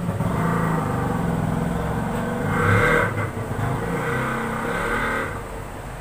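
A motor vehicle's engine passing by, growing louder to a peak about three seconds in and dying away shortly before the end.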